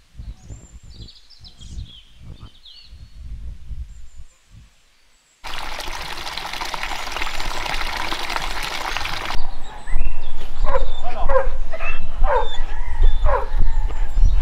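Faint bird chirps at first, then about four seconds of a stream's flowing water. From about ten seconds in, a dog barks repeatedly and loudly.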